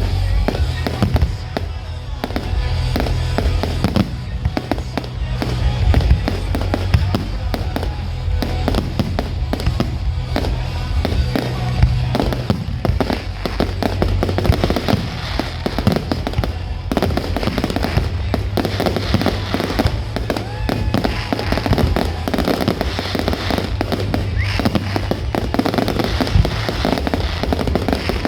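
A fireworks display: continuous crackling bangs and bursts of shells going off in rapid succession, with music playing underneath.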